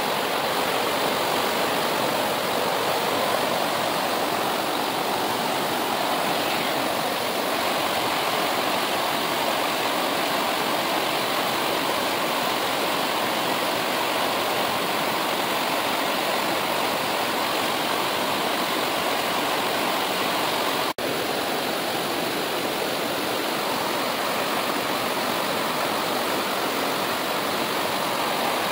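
Mountain river water rushing steadily over rocks, with a momentary break about two-thirds of the way through.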